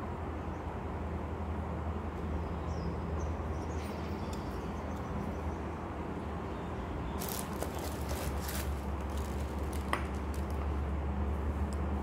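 Steady low hum with light handling noise: a few short bursts of rustling and clicks as a glass teacup is turned in the hands over tissue-paper and bubble-wrap packaging, and a single small tap about ten seconds in.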